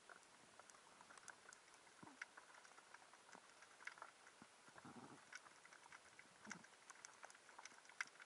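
Faint underwater crackle heard through a waterproof camera housing: scattered sharp clicks and pops, irregular, with a low muffled rush about five seconds in and again a little later.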